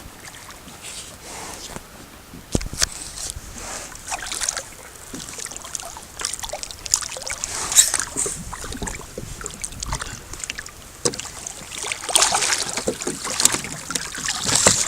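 Irregular water splashing from a hooked black drum thrashing at the surface beside a small boat, with a single knock about two and a half seconds in.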